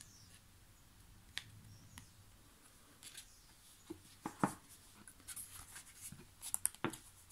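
Light taps and rustles of paper and card: a photocard handled and put down, then the pages of the album's photobook picked up and flipped. The sounds are sparse at first and come thicker in the second half.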